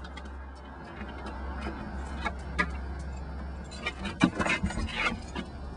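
A bunch of keys jangling, then clicking and scraping at a door lock, loudest about four seconds in: the key does not work because the lock has been changed. A steady low rumble runs underneath.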